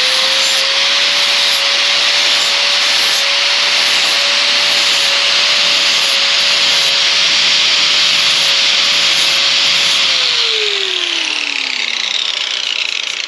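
A power tool with a sanding disc grinding the bevel of a mulching lawn mower blade held in a vise, taking the marker off the cutting edge. The motor whine holds steady under the grinding noise, then falls in pitch as the tool winds down about ten seconds in.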